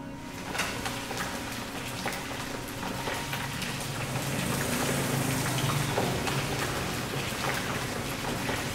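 Duck pieces deep-frying in a wok of hot oil: a dense, steady sizzle and crackle that starts about half a second in and grows a little louder about halfway through.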